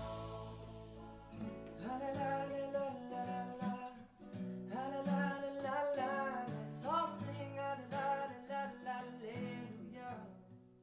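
Background music: acoustic guitar with a singing voice that comes in about two seconds in.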